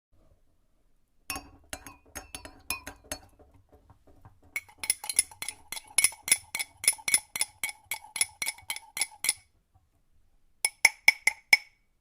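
Metal spoon stirring in a cup, clinking against its sides in runs of quick clinks, about three to four a second, each with a short bright ring. A longer run comes in the middle, and a final quick run of about five clinks comes near the end.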